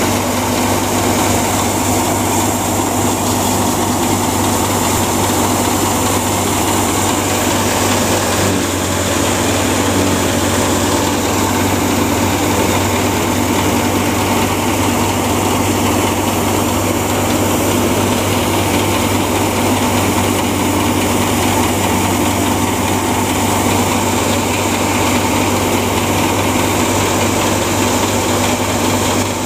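Tractor-driven wheat thresher running steadily as wheat sheaves are fed into it, a constant mechanical drone of the threshing drum and the tractor engine that drives it.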